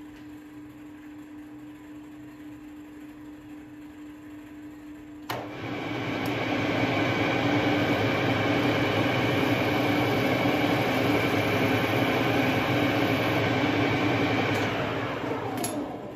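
Metal lathe spindle started with a click about five seconds in, running up to speed and then running steadily with a gear whine. Near the end it winds down, the pitch falling, with another click. A steady low hum is heard before it starts.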